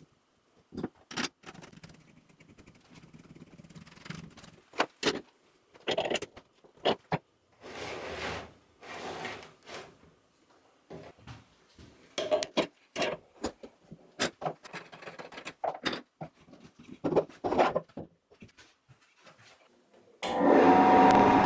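Scattered clicks, knocks and short scrapes of wooden blocks being handled and pressed onto a glued stack on a threaded rod. Near the end a wood lathe comes on suddenly and runs loudly and steadily.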